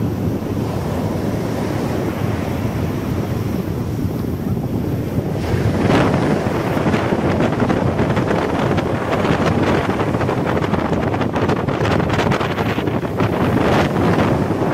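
Wind rushing over the microphone of a moving motorcycle, a loud, steady roar of noise that grows stronger and gustier about six seconds in.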